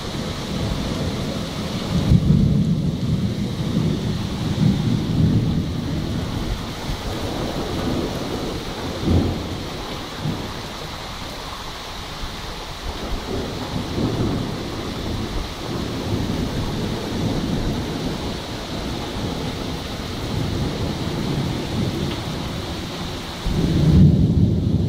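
Thunderstorm at night: rain falling steadily, with rolling thunder that swells about two seconds in and fades over a few seconds, a shorter rumble near the middle, and a louder peal that starts suddenly near the end.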